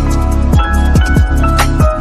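Background music with a steady beat: deep bass notes that slide down in pitch, quick ticking percussion above them, and held synth notes.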